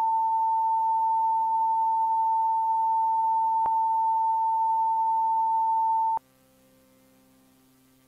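Steady single-pitch test tone of the kind that goes with colour bars, with one brief click about halfway through. The tone cuts off suddenly about six seconds in.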